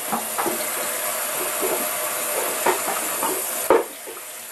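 Kitchen sink sprayer running cold water over hands and a lump of butter and splashing into a stainless steel sink, with small knocks and splashes as the butter is worked under the spray. A sharper knock near the end, after which the water sounds quieter.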